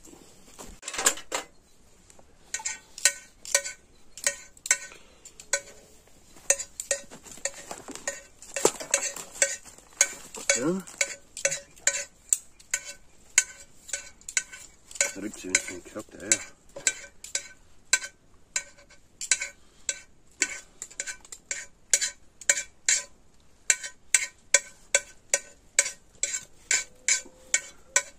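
Metal utensil knocking and scraping against a metal cooking pot, a rapid series of ringing clinks, roughly two a second, as food is stirred.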